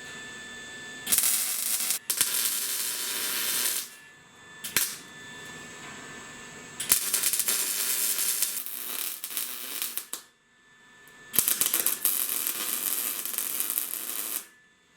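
Electric welder laying three short welds, each a crackling, sizzling arc burst of about three seconds, with brief pauses between them.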